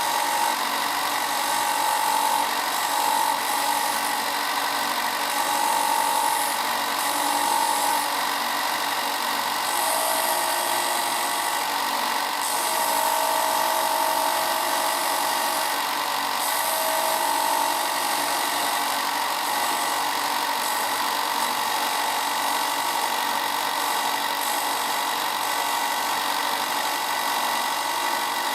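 Ryobi belt and 6-inch disc sander running steadily and loud, a wood circle being turned against the spinning sanding disc to round its edge; the grinding of the sanding swells and eases every second or few as the wood is pressed on and eased off.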